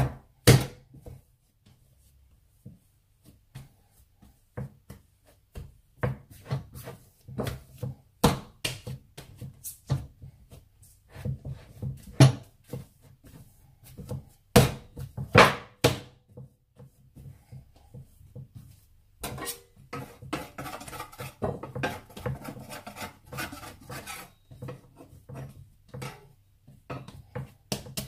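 Bread dough being kneaded and shaped by hand on a wooden chopping board: irregular knocks and thumps as the dough is pressed and dropped onto the board, a few much louder than the rest. In the later part there is a stretch of denser rubbing and scraping on the board.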